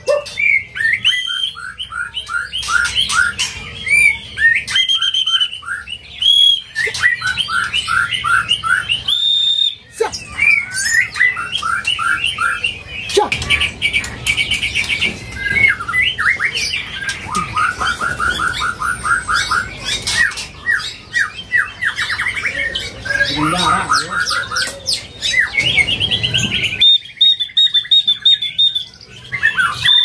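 White-rumped shama singing in its cage: a continuous, varied song of fast runs of repeated chattering notes and high clear whistles.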